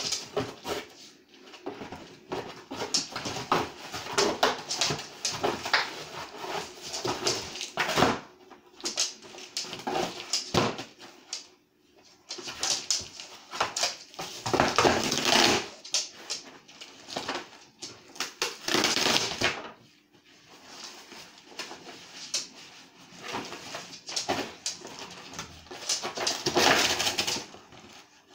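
A dog tearing and chewing apart a cardboard box: cardboard ripping and crackling in irregular bursts, with short pauses between.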